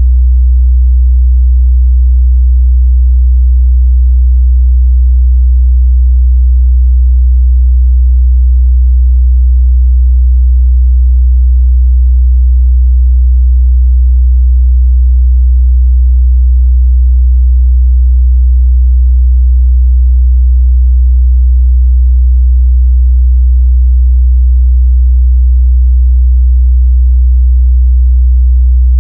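Steady, loud 62 Hz sine-wave test tone, a single unchanging low bass hum used to check the mid-bass response of speakers and headphones.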